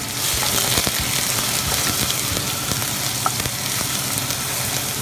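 Chopped onions and garlic sizzling steadily in hot oil-and-sugar caramel in a stainless steel pot, being stirred with a wooden spoon. A few light knocks of the spoon against the pot sound through the sizzle.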